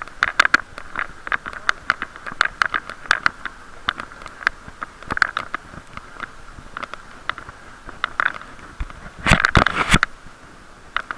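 Irregular crackling and clicking picked up by an action camera sealed in a waterproof case on a moving bicycle, over a muffled steady hiss; a denser, louder run of knocks comes about nine seconds in. The case spoils the sound, turning the ride's bumps and the wind into this crackle.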